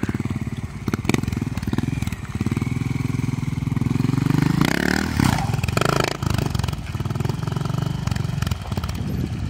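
Trials motorcycle engine running at low revs with throttle blips, revving up about halfway through as the bike climbs the boulder. A few sharp knocks come about a second in.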